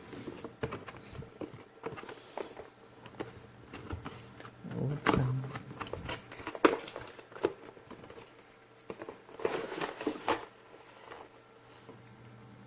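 Unboxing noises: a headset's cardboard box and plastic packaging handled, with scattered rustles and clicks and louder bursts of rustling about five seconds in and again near ten seconds.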